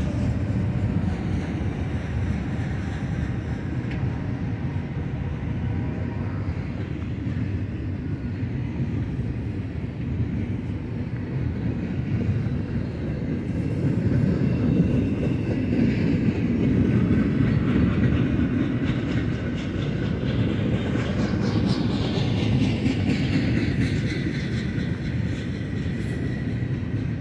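Double-stack intermodal freight train's loaded well cars rolling past: a steady rumble of steel wheels on the rails, swelling a little in the middle.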